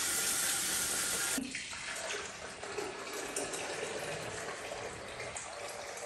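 Kitchen faucet running into a glass coffee carafe, shut off sharply about a second and a half in. Then water is poured from the carafe into the reservoir of a drip coffee maker, quieter and uneven.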